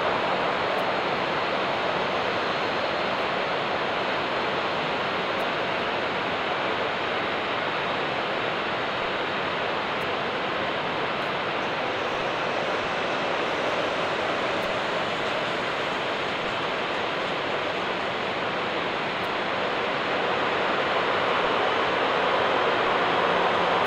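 Jet airliner engines running: a steady roar with a faint high whine, swelling a little in the last few seconds.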